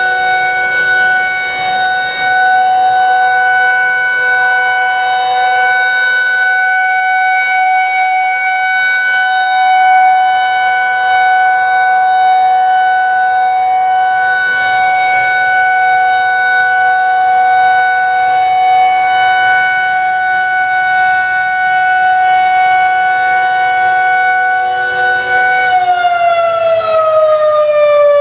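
Federal Signal 2001-130 outdoor warning siren holding one steady tone, the continuous Alert signal. About three seconds before the end the pitch starts sliding steadily down as the siren winds down.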